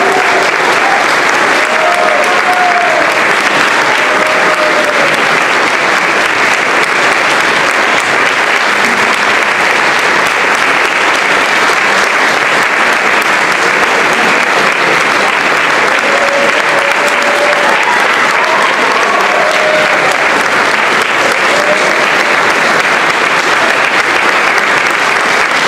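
Large concert audience applauding steadily, an ovation at the end of an orchestral concerto performance, with a few voices calling out briefly above the clapping.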